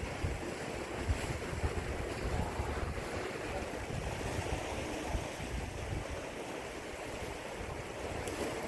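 Steady wash of sea surf on a rocky shore, with wind buffeting the microphone in uneven gusts.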